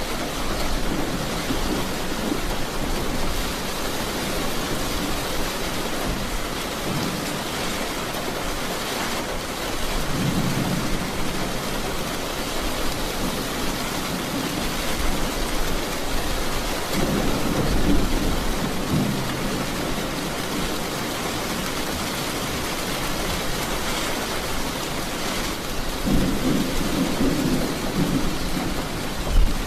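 Steady heavy rain hissing, with three low rolls of thunder swelling and fading, and a sharp clap near the end.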